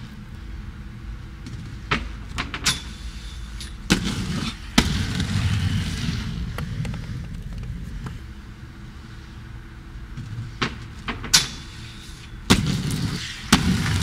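Aggressive inline skates: a series of sharp knocks as the skates hit a metal handrail and the ground, with the rough rumble of skate wheels rolling over coarse paving between them.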